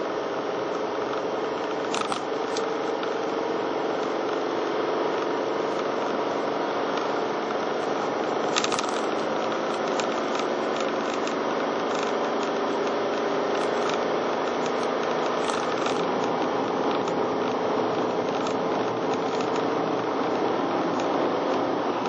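Steady road noise and engine hum of a moving car at cruising speed. A few sharp clicks come about two seconds in and about eight seconds in, with fainter ticks after.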